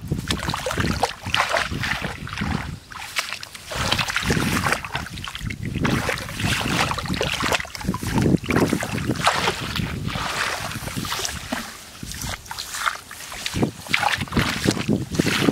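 Shallow water splashing and sloshing in uneven bursts, as from hands or feet working through a muddy pool.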